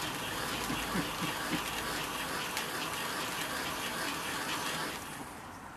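Garden firework spraying sparks: a steady hiss with occasional faint crackles, dying down about five seconds in.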